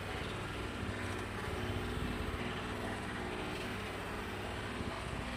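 Steady low background rumble with a continuous hum, unchanging throughout.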